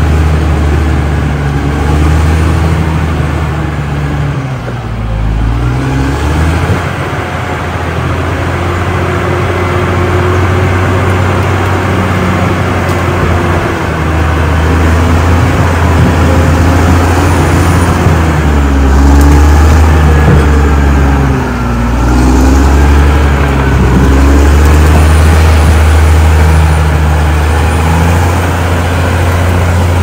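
Caterpillar D6R XL bulldozer's diesel engine working as the blade pushes soil and brush. The engine note dips and recovers a few times under load.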